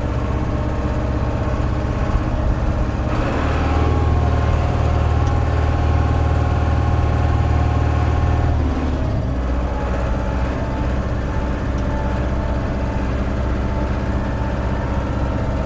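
International 685XL tractor's four-cylinder diesel engine running as the tractor drives along in high gear, a steady drone that grows louder for about five seconds a few seconds in and then eases back.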